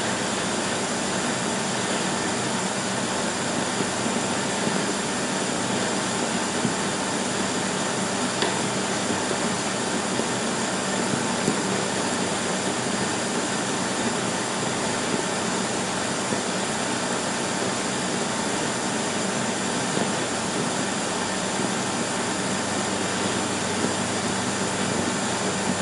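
Steady, even rushing noise that does not change in level, with a couple of faint clicks.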